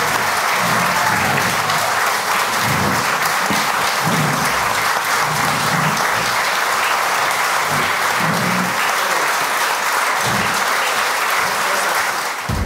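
Audience applauding in a hall at the end of a performance, steady throughout, cutting off suddenly at the end.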